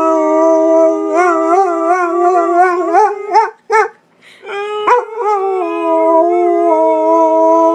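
Pit bull howling: long howls that waver in pitch, breaking off for about a second near the middle, then a long, steady howl.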